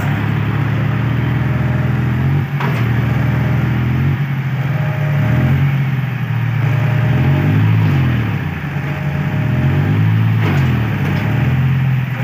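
John Deere tractor diesel engine running hard and revving up and down several times under heavy load, as a tractor stuck in mud works to pull free.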